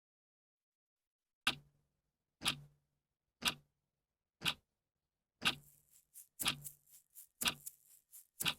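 Clock ticking steadily, one sharp tick a second, starting about a second and a half in; from about halfway, softer extra clicks fall between the ticks.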